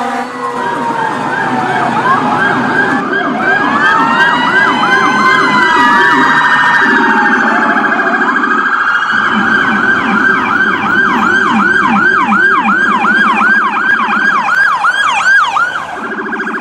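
Electronic emergency-vehicle siren sounding a high and a low tone at once, mostly in a fast yelp of about three sweeps a second, with slower wailing sweeps mixed in during the first few seconds.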